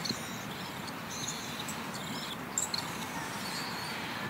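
Outdoor ambience: a steady background hiss with scattered short, high chirps and a couple of soft clicks, the louder ones about 2.5 seconds in.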